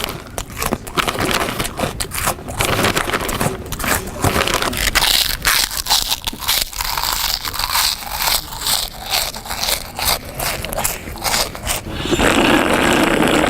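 Loud eating: a rapid, irregular run of crunching, crackling and scraping, with a denser, louder rustle near the end.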